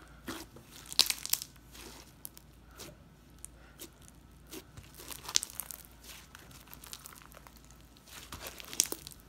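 Compound Kings glitzy binsu slime, full of iridescent beads and glitter, being squeezed, pressed and stretched by hand, giving irregular sticky crackles and small bubble pops. The sharpest pops come about a second in and again near the end.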